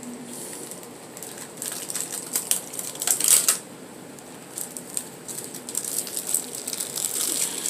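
Irregular crinkling of a clear plastic plant sleeve and light clicks of small plastic pots being handled and set down, with a louder crinkle about three seconds in.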